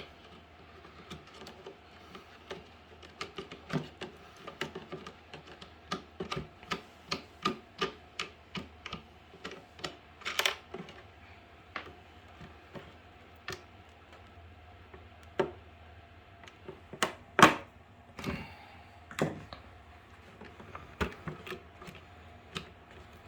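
An irregular run of sharp clicks and knocks as the fittings of a chicken watering box are twisted off and handled, with one louder knock about two-thirds of the way through.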